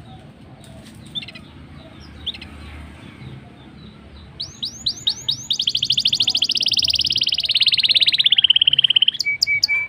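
Black-throated canary (blacken) singing. A few faint chirps open the passage; about four seconds in come several quick falling notes, then a long, fast rolling trill that slowly drops in pitch, and short steady notes near the end.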